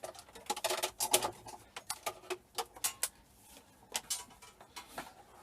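Irregular crackling and clicking of flex cable being handled as its plastic sheathing is peeled off by hand to free the copper strands.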